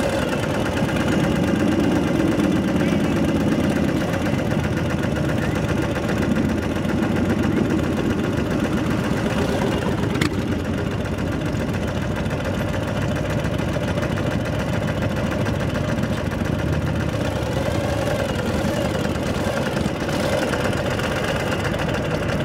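Motorcycle engines running steadily at low revs as the bikes roll slowly in a group.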